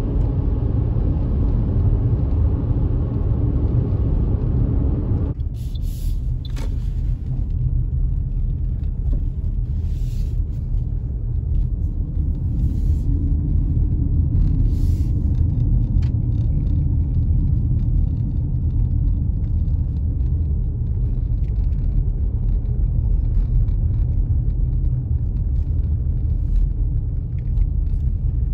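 Road noise heard inside a moving car's cabin: a steady low rumble of tyres and engine. About five seconds in the higher hiss drops away suddenly, leaving a quieter, lower rumble of slow driving with a few faint ticks.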